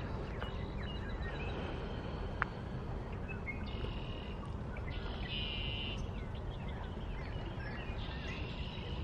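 Birds singing outdoors: scattered chirps and a buzzy trill repeated three times, over a steady low background rumble. A single sharp click comes about two and a half seconds in.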